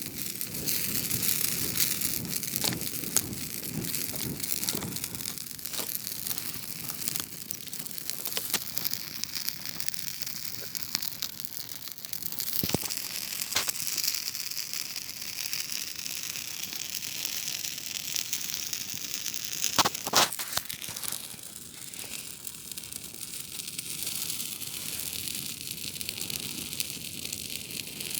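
Campfire burning: a steady crackle and hiss of burning wood with scattered sharp pops, the loudest about twenty seconds in.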